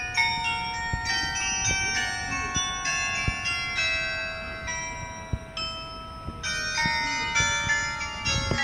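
Tower carillon bells playing a melody: a run of single struck notes that ring on and overlap one another.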